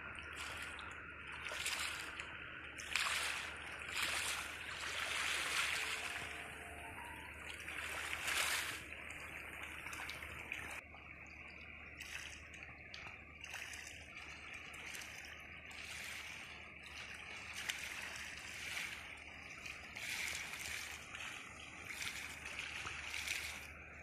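Small waves lapping and splashing irregularly against a concrete quay and stony shore, in uneven swells with no steady rhythm.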